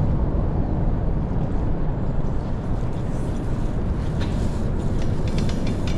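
Steady low rumbling noise with no clear tone or rhythm, with faint higher ticks and clatter toward the end.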